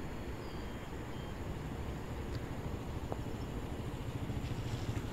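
A motor vehicle's engine running, a low pulsing rumble that grows louder near the end as it comes closer.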